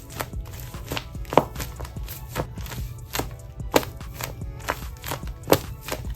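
Background music with a steady, quick beat, with three louder sharp clicks standing out above it.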